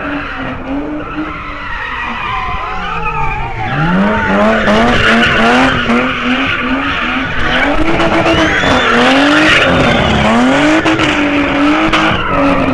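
A car engine revving up and down hard as the car drifts, tyres squealing and skidding on the asphalt. The engine note drops low about three and a half seconds in, then climbs again, and the tyre noise gets louder from about four seconds in.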